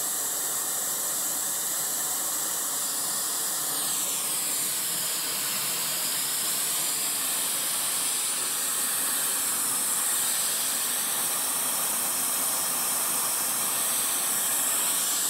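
White noise played through an Edifier R1280T active bookshelf speaker, set with bass at minimum and treble near full: a steady, treble-heavy hiss. From about four seconds in, its tone shifts with sweeping changes as the speaker is lifted off the table and moved around. This shows how the table surface colours the speaker's response.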